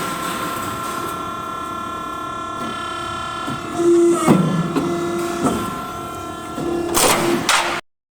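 Metal roof tile roll-forming machine running: a steady whine with clunks twice, a few seconds apart. The sound cuts off suddenly near the end.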